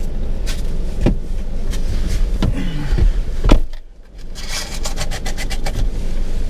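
Car cabin with the engine running at a steady low rumble as the driver climbs in; the driver's door shuts with a thump about three and a half seconds in, followed by quick rustling as he handles a hand wipe.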